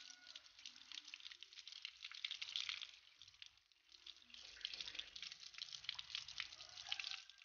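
Faint tap water running over a plant's roots and fingers, splashing and dripping onto concrete as soil is rinsed off; the splashing thins briefly about halfway through.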